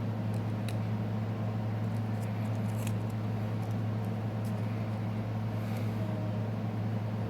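Steady low hum in the background, with a few faint light clicks of small phone parts and tools being handled during disassembly.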